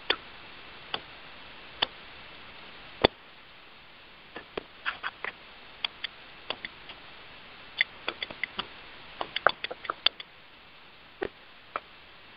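Sharp clicks and taps over a steady line hiss on a conference-call line: about one a second at first, then irregular clusters of clicks from about four seconds in.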